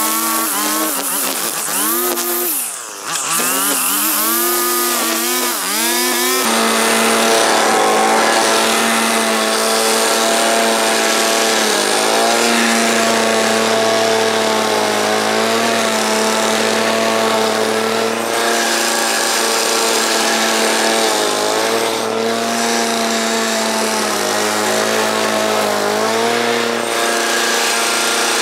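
String trimmer revving up and down as it cuts grass. About six seconds in it gives way to a petrol walk-behind lawn mower's engine running steadily, its pitch sagging briefly now and then as it takes load.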